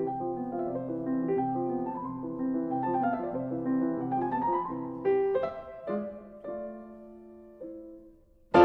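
Background piano music: repeated chords with a rising run of notes, thinning to a few sustained notes that fade away, then a loud new chord right at the end.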